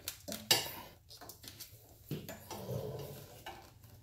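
Small clicks and clatter of wires and a plastic connector being pushed by hand through the gauge opening in a motorcycle fairing, with a sharper knock about half a second in.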